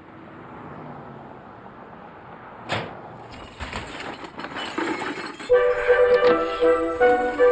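Cartoon sound effects: a swelling rush, a sharp hit, then glassy clinking and tinkling. About two-thirds of the way in, loud piano-led music comes in and stays the loudest sound.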